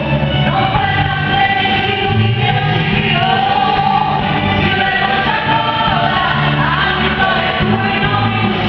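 Christian worship song sung live: several voices singing together over band accompaniment with a steady bass.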